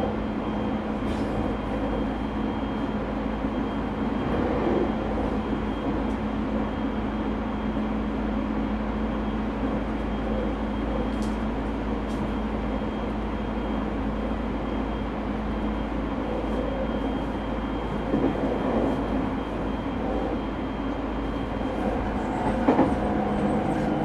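JR 209 series 0-type electric train motor car running at speed, heard from inside the car: steady rumble of wheels on rail with a constant hum and a thin steady high tone, a few short clicks over the rail, and a louder knock near the end.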